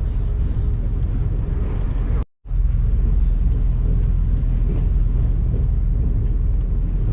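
Train running noise heard inside a passenger carriage: a steady low rumble. It cuts out completely for a moment about two seconds in, then carries on.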